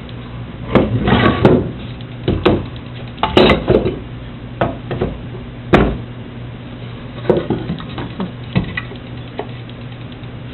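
Irregular knocks and clatter of wood and tools being handled on a workbench, with one sharp knock about six seconds in, over a steady low hum.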